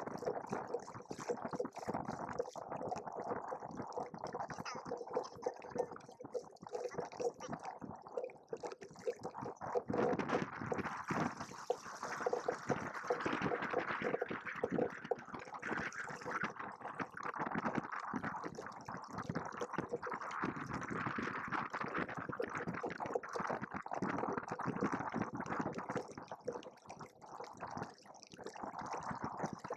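Water splashing and gurgling against the hulls of a Hobie Cat 16 catamaran under sail, an uneven continuous patter.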